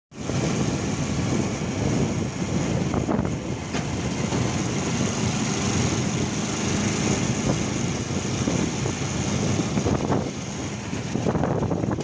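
Wind rushing in through an open window of a moving vehicle and buffeting the microphone, over the vehicle's engine and road noise.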